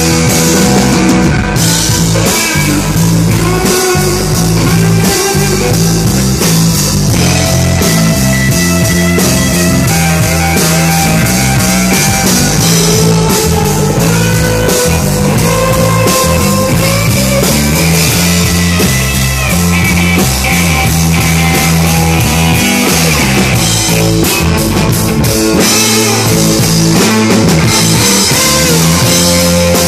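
Live rock band playing loudly: a Telecaster-style electric guitar over a drum kit with cymbals and a keyboard.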